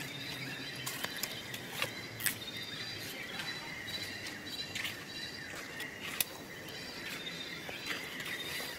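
Outdoor forest background: steady high-pitched chirping over a soft hiss, with scattered short, sharp clicks.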